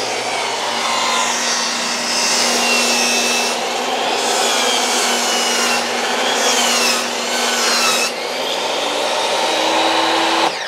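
Portable table saw ripping a long wooden board lengthwise: the saw's motor runs steadily under load while the blade cuts through the wood, its pitch shifting slightly as the board is fed through.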